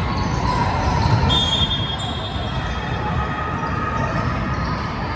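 Basketball being dribbled on a gym court over steady crowd noise, with a high sneaker squeak on the floor about a second in.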